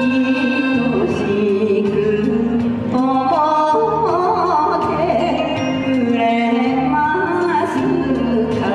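A woman and a man singing an enka duet into microphones over instrumental backing music, amplified through a hall sound system.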